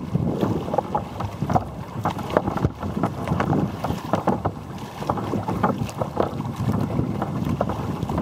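Choppy sea water slapping and splashing against the bow of a Valley Anas Acuta sea kayak, with many short, irregular splashes. Wind buffets the microphone.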